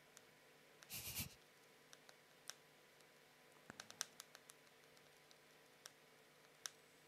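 Faint, scattered clicks at a computer desk, irregular and sparse, with a quick run of several clicks about four seconds in. A short soft bump about a second in.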